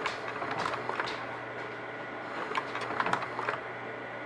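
Vivitar 3000AF slide projector running: its cooling fan gives a steady hum, and the slide-change mechanism clicks and clatters in short clusters about a second in and again around three seconds in.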